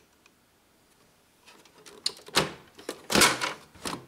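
HP 106A plastic toner cartridge being pulled out of an HP Laser MFP 135a printer: plastic scraping against the cartridge guides with a run of sharp clicks, starting about a second and a half in and loudest near three seconds.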